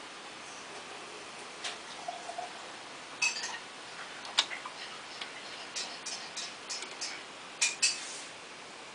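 Dual 1237 turntable giving off scattered light mechanical clicks and ticks over a steady hiss, with a louder double click near the end.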